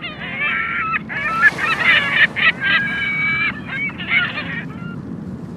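Gulls calling loudly, a rapid run of overlapping harsh calls that stops near the end, over the steady wash of breaking surf.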